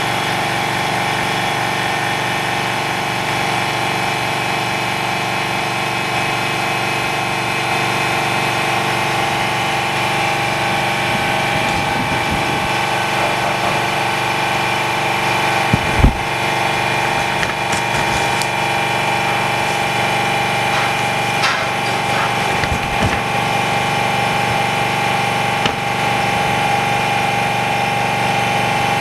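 Screen-repair bubble remover machine running with a steady mechanical hum while it pressurises the glass and OCA film to clear bubbles. A sharp knock sounds about halfway through, followed by a few lighter clicks.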